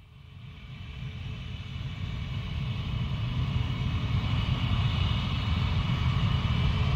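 Concorde's Rolls-Royce/Snecma Olympus 593 turbojet engines: a deep rumble under a high whine of several close tones, growing steadily louder from nothing as the jet noise builds.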